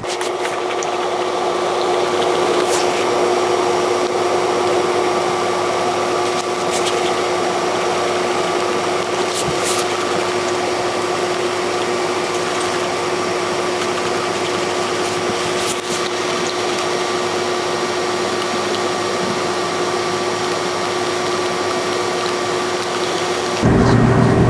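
A steady mechanical whir with a constant hum at several fixed pitches and a few faint clicks, cutting off to a different sound about a second before the end.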